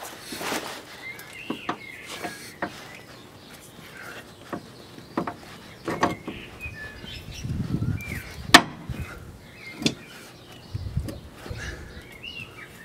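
Scattered, irregular metallic clicks and clinks of a spanner being worked on the nut of a Mini R50's front control arm bolt, with one sharp clack a little past the middle. Small birds chirp in the background.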